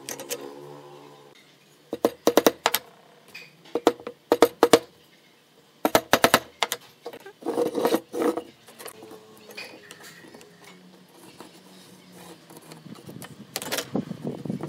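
Small nails being tapped into a wooden block with a hammer: four bursts of several quick, sharp knocks each, about two seconds apart, with quieter handling on the workbench between them.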